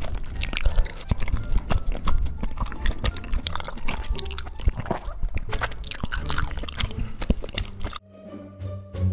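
Close-miked eating sounds: wet chewing, smacking and sharp mouth clicks of someone eating cheese-topped tteokbokki rice cakes, over background music. About eight seconds in, the eating stops and only the music is left.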